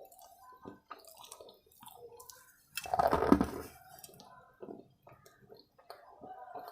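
A person chewing soaked white chalk: soft wet squishing and clicking mouth sounds, with a louder burst about three seconds in.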